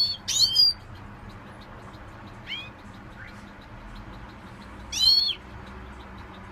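Pet songbirds giving short rising-and-falling call notes: two loud calls at the start, a soft call about two and a half seconds in, and another loud call about five seconds in.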